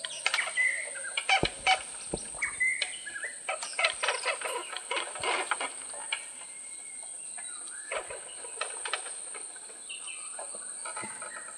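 Forest birds calling in short chirps and clucks over a steady high insect buzz, with a few sharp clicks between one and two seconds in.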